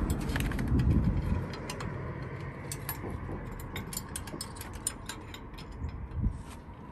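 Metal parts of a hydraulic jockey wheel jack clicking and knocking as they are handled and fitted together: a run of sharp clicks with a duller bump early on and one louder knock about six seconds in.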